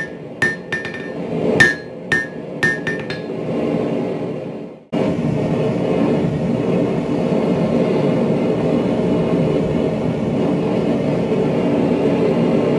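Hand hammer striking a hot steel bar on an anvil, about seven blows each with a short metallic ring, during the first three seconds. After an abrupt cut, a steady low rushing roar runs on to the end.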